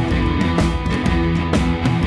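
Instrumental rock background music with guitar and a steady drum beat.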